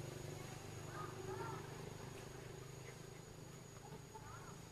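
A young macaque giving faint, short squeaky calls that rise and fall, a couple about a second in and a few more near the end, over a low steady engine hum.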